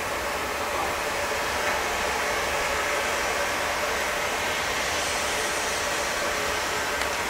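Class 52.80 steam locomotive 52 8079 working hard as it accelerates a heavy coal train, heard from a distance as a steady rushing exhaust noise without distinct separate chuffs.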